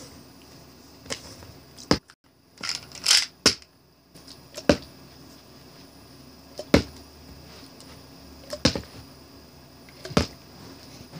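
Small plastic pill bottles being flipped and landing on a hardcover book: a string of short, sharp plastic knocks and clatters, about one every second or two, with a quick cluster of them around three seconds in.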